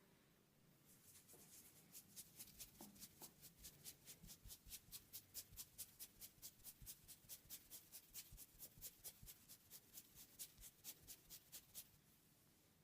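Faint, fast rhythmic rubbing of hands through hair on the scalp during a head massage, a scratchy rustle of about four or five strokes a second that starts about a second in and stops near the end.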